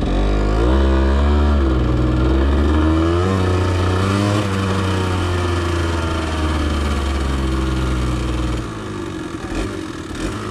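Trail motorcycle engine running as it is ridden, its pitch rising with the throttle twice in the first few seconds, then holding steady. Near the end it drops to a lower, quieter run as the throttle is eased off.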